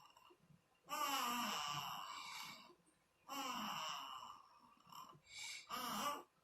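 Newborn baby snoring in its sleep: two long, pitched, wheezy breaths, then a few short ones near the end.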